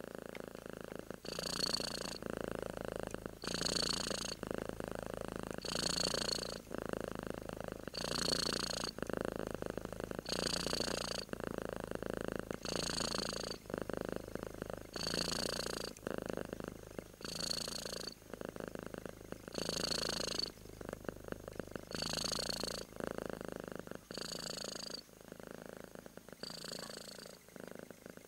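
Black-and-white domestic cat purring steadily while asleep, close to the microphone, swelling with each breath about every two seconds and easing a little near the end.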